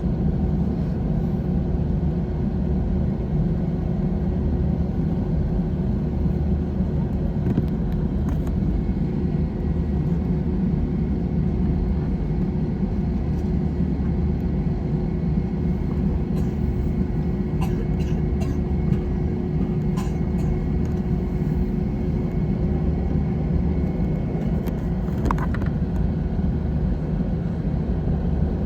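Steady cabin noise inside an Airbus A321 on the ground before takeoff: the engines running low and the air conditioning give a constant rumble with a steady hum. A few faint clicks come in the middle and near the end.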